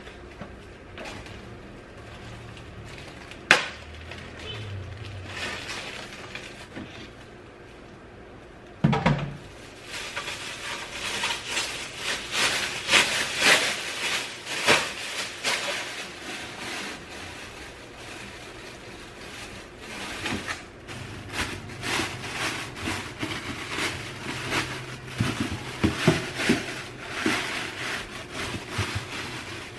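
Thin plastic trash bag rustling and crinkling as it is shaken open and fitted into a small plastic trash can. There is a sharp click about three and a half seconds in and a knock near nine seconds.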